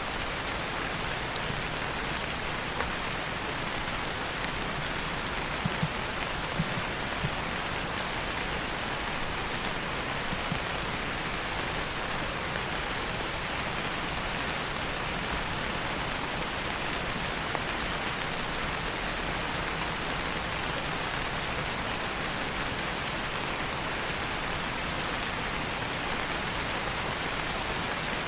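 Steady rain falling, an even hiss with a few scattered louder drops.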